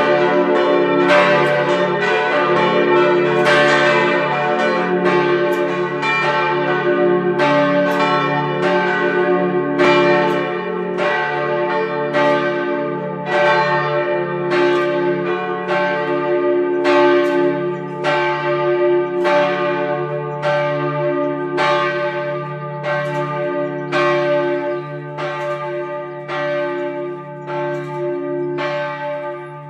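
Church bells of the Pöllauberg pilgrimage church ringing in a full peal. Several swinging bells strike in a steady overlapping pattern, somewhat more than once a second, over a long humming ring. The peal grows gradually softer toward the end.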